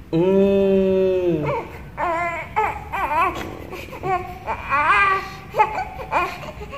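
One-month-old baby crying while fussy: a long wail of about a second and a half that falls off at its end, then a run of short, broken cries.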